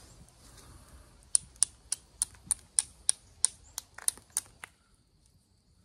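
Chert being knapped with an antler tool: about a dozen sharp clicks in quick succession, roughly three a second, then they stop.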